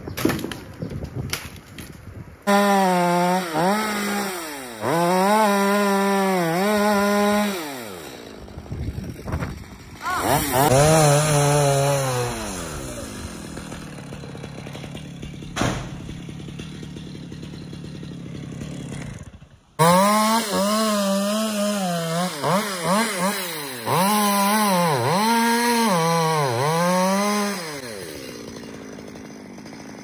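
Small two-stroke chainsaw running and being revved in repeated bursts, the pitch surging up and falling back several times. It settles to a lower, steadier running sound in the middle, cuts out abruptly for a moment, then resumes its bursts of revving.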